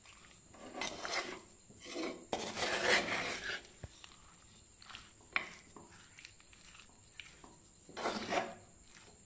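A spoon stirring and tossing chunks of brinjal, onion and green chilli in a thick sauce in a clay pot, scraping against the pot in irregular bursts of a second or so with quieter gaps between. There is one sharp clack a little past halfway.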